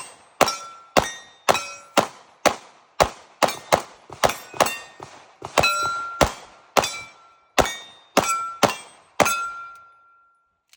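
Pistol firing a steady string of about twenty shots, roughly two a second, with steel targets ringing after many of the hits. The last ring fades out about a second after the final shot.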